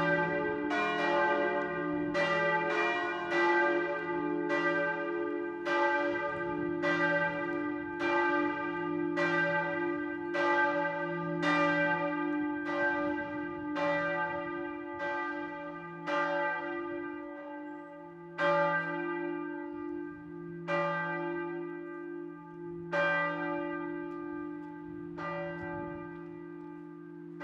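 Four steel church bells cast at the Böhler works in Kapfenberg, swinging in full peal over a steady low hum. Strikes come close together at first, then thin out to about one every two seconds in the second half as the peal rings down.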